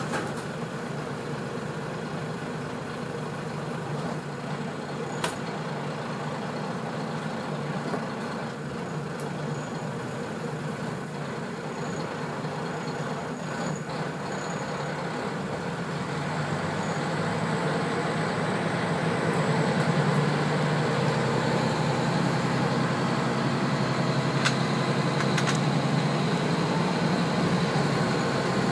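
Diesel engine of a Kashima Rinkai Railway 6000-series railcar heard from inside the cabin: a steady idle at first, then growing louder from about halfway through as it takes power and the car pulls away. A few sharp clicks are heard.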